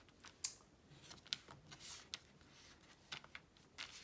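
Faint scattered clicks and light rustling from handling plastic Blu-ray cases and their cardboard packaging.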